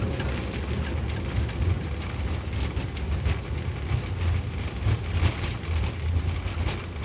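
Airbus A330 rolling on the ground after landing, heard from inside: a steady low rumble with a hiss and frequent light rattles.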